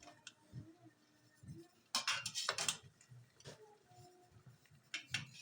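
A few sharp clinks and clatters of kitchen utensils against dishes or pots, a quick cluster about two seconds in and a couple more near the end.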